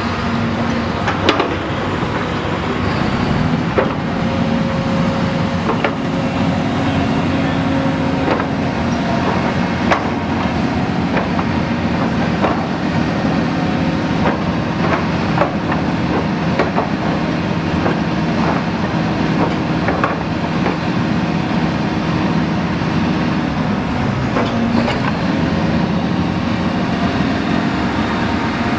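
Cat excavator's diesel engine running steadily under load while its hydraulic drive head screws a helical pipeline anchor into the ground. The engine hum shifts in pitch a few times, with scattered sharp metallic clanks.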